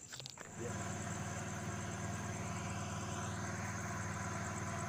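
An engine idling steadily, a low even hum that starts abruptly about half a second in, with insects chirping high and faint above it.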